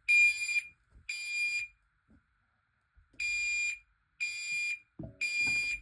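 Fire alarm beeping loudly in the temporal-three evacuation pattern: high-pitched half-second beeps in groups of three, with a longer pause between groups.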